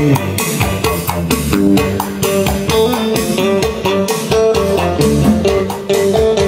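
Guitar music with a bass line played back through hi-fi loudspeakers, the JVC Victor wood-cone SP-EXA10 speakers driven by a Luxman A3500 power amplifier, heard in the room as a demonstration of the system.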